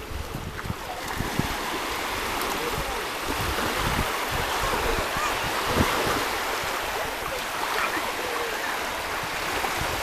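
Small waves lapping and washing in the shallows at the water's edge, a steady wash of water, with wind rumbling on the microphone.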